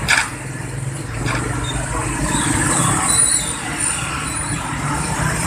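Steady low rumble and hiss of background noise, with a sharp knock just after the start and a fainter one about a second later.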